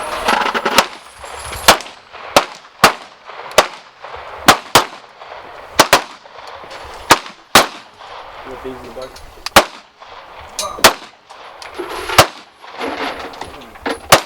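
Gunshots, about fifteen sharp reports at uneven spacing, some in quick pairs, each with a short trailing echo: handgun fire on a shooting range.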